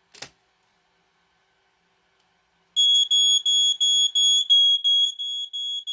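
A click, then about three seconds in a vintage Dicon smoke alarm's horn starts sounding a loud, high-pitched pulsing beep, about three pulses a second. The alarm is falsing: it sounds with no smoke present, the known fault of this unit.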